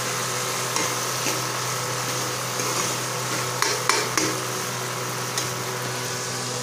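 Metal spoon stirring kidney beans (rajma) in masala in an aluminium kadai, scraping the pan, with a few sharp clinks of the spoon against the pan, most of them a little past halfway. Underneath runs the steady hum of a kitchen exhaust fan.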